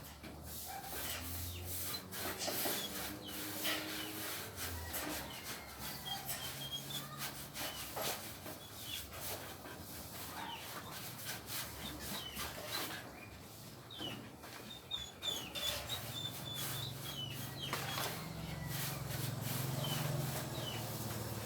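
Scattered knocks and rubbing of wood being worked on a building site, with a few short high chirps.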